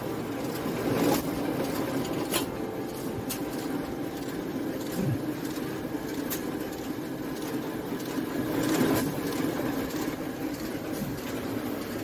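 Non-woven bag-making machine running: a steady mechanical hum, with occasional sharp clicks and knocks at irregular intervals.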